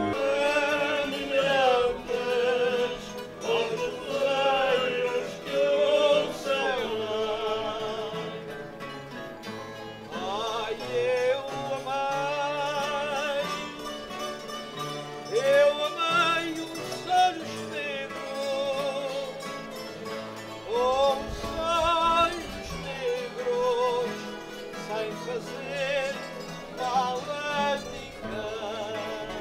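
Portuguese folk cantoria group performing live: voices singing a melody with vibrato over strummed acoustic guitars.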